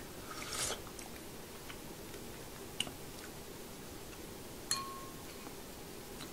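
Tasting a thick oxtail soup from a spoon: a short slurp about half a second in, then quiet eating and two light clicks of the spoon, the second ringing briefly like metal against a bowl.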